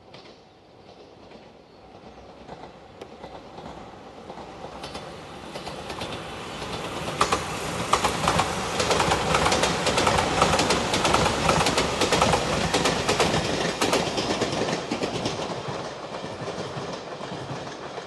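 Five-car JR Shikoku 8000-series electric limited express passing: the sound swells over several seconds, peaks around the middle with rapid clickety-clack of wheels over rail joints, then fades away.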